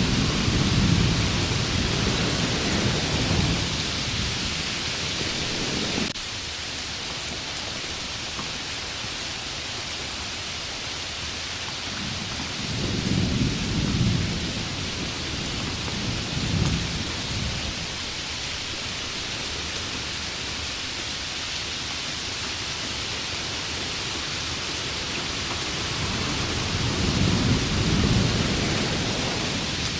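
Heavy monsoon rain falling in a steady hiss, with low rumbles of thunder swelling at the start, in the middle and near the end. The level drops suddenly about six seconds in.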